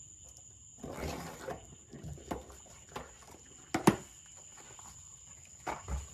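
Parts and packaging being handled: a brief rustle about a second in, then several light knocks and clicks, the sharpest just before four seconds in.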